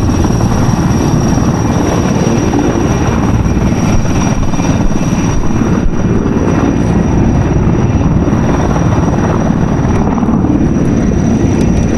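Firefighting sky crane helicopter running close by over the water: a loud, steady rotor and turbine noise.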